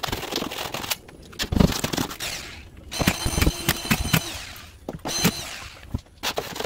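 Cordless drywall screw gun driving screws into ceiling plasterboard: short runs of motor whine with rapid clutch clicking, among a few sharp knocks.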